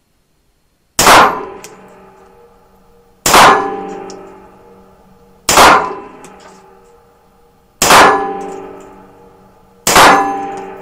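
Five shots from a Unique DES-69 .22LR target pistol, fired slowly about two seconds apart. Each shot is a sharp crack followed by a long ringing decay.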